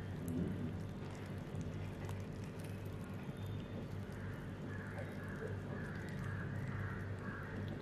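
Crisp fried breadcrumb crust of a mac and cheese ball crackling faintly in scattered small clicks as it is pulled apart by hand, over a steady low electrical hum.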